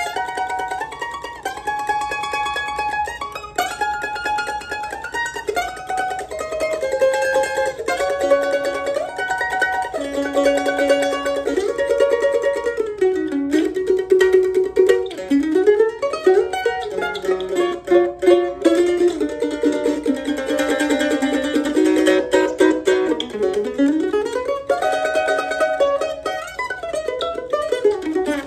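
Weber Road Dog F-style mandolin, with a red spruce top and maple back and sides, played solo with a pick: a slow melody of held notes, then faster runs from about halfway through.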